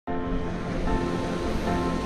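Background music of held notes that change about every second, over a steady wash of small waves breaking on the shore.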